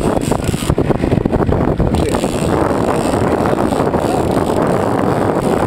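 Wind buffeting the microphone on an open boat at sea: a steady low rush, gustier in the first couple of seconds.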